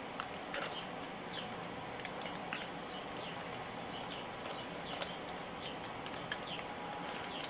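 Faint crinkling and small squeaks of a plastic toy bag being worked at by hand as it resists opening, over a steady background hiss.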